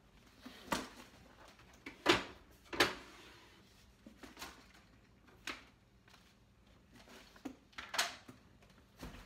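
Two large tote bags being carried and set down on a kitchen counter: a series of knocks and rustles, loudest about two seconds in, again just under a second later, and near the end.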